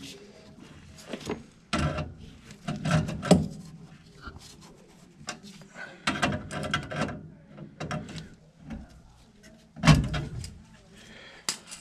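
Irregular knocks, clunks and scraping of tools and metal parts being handled while gas piping connections on a furnace are worked on. There are louder knocks about three seconds in and again near the end.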